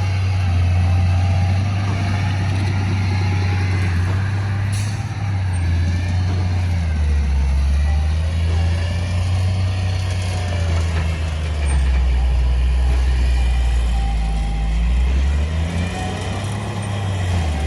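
Heavy diesel engine of construction machinery running under load. Its low drone drops in speed about a third of the way in and picks up again near the end.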